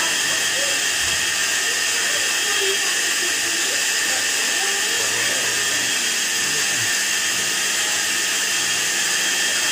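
Electrolux EWF984 front-loading washing machine running under test: a steady, high-pitched whine with hiss.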